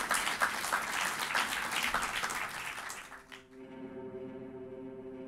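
Audience applauding. A little over three seconds in, the clapping cuts off and a sustained musical chord of steady tones begins.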